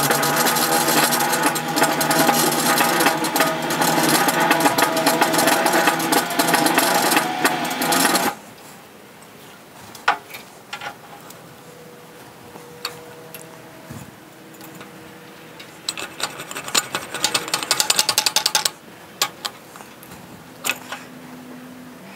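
Bead roller pressing a bead into a 3-inch steel exhaust tube as the tube turns through its dies: a loud, steady mechanical run with ringing metal tones for about eight seconds that then stops. A shorter run of rapid clicking follows about two-thirds of the way through.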